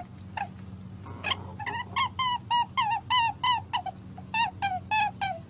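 A quick series of short, squeaky animal calls, about three a second, each bending up and then down in pitch, over a low steady hum.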